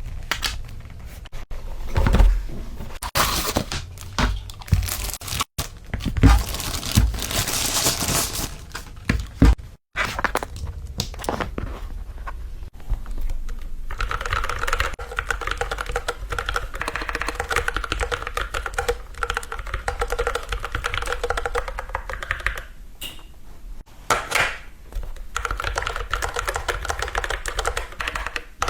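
Cardboard and plastic packaging rustling and tearing for about the first ten seconds, then continuous fast typing on a Keychron Q11 split mechanical keyboard with Gateron G Pro switches and PBT keycaps, a dense run of clacking keystrokes.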